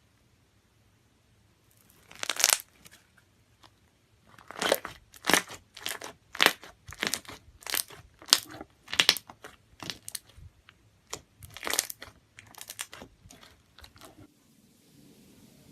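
Slime being squeezed and pressed by hand, giving a run of crackling, crunchy squelches about every half second. They begin about two seconds in and stop a little before the end.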